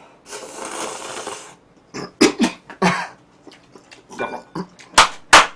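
A man laughing: a long breathy exhale, then short broken bursts of laughter, ending in two loud sharp bursts near the end.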